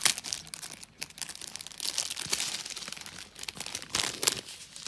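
Plastic packet of diamond-painting rhinestones rustling and crinkling in the hands as it is opened, with irregular crackles throughout.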